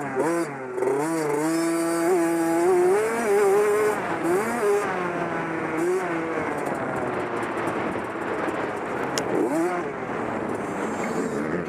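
Dirt bike engine heard on board while riding a motocross track, its pitch climbing as it accelerates in the first few seconds, dropping back a few times, and rising again near the end.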